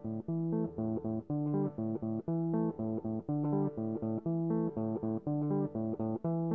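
Background music: an instrumental line of short, evenly paced notes with a steady rhythm. No crash sound is heard.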